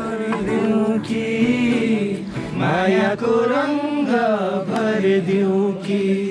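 Background music: a song with a singing voice whose pitch bends and wavers over a steady accompaniment.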